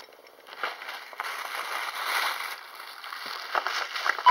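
Paper gift bag and tissue paper being handled, rustling and crinkling irregularly, with small crackles throughout.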